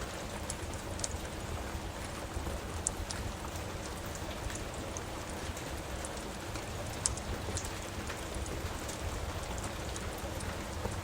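Steady rain with a wood fire crackling, its sharp small pops scattered irregularly over the rain, one louder pop about seven seconds in.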